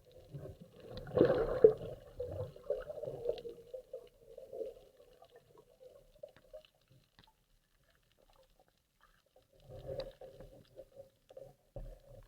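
Faint water sounds: soft sloshing in two short spells, about a second in and again about ten seconds in, with scattered faint clicks between.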